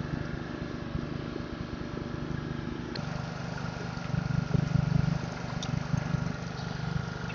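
Small gasoline engine of a pressure washer running steadily, with a faint hiss of spray over it; the level swells a little about halfway through.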